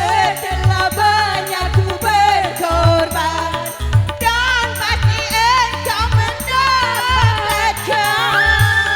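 Dangdut band playing: an ornamented, wavering lead melody over a steady drum beat.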